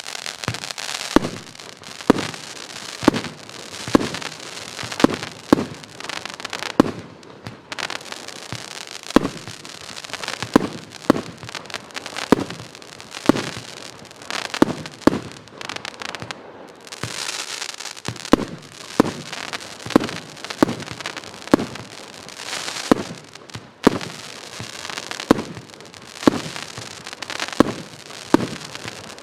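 Pyroworx 'Dantes Inferno' firework firing a steady run of sharp shots, roughly one every half second to a second, with hissing and crackling between them.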